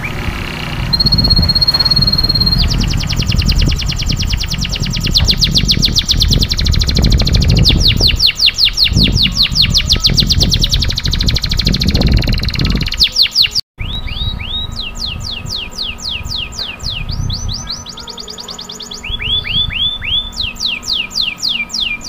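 Domestic canary singing a long song of fast rolled trills. It opens with a short steady high trill, then runs into rapid repeated falling notes. The song breaks off sharply about two-thirds through and resumes with other rolled phrases, over a low rumble in the first half.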